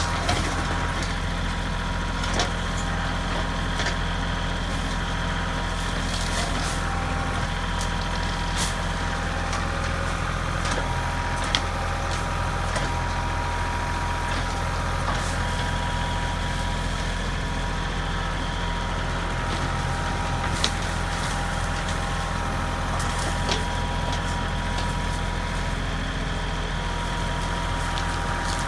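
Kubota L3301 tractor's three-cylinder diesel running steadily under backhoe work, with a thin steady whine over it. Scattered sharp cracks and snaps of wood come through as shrubs and their roots are torn out.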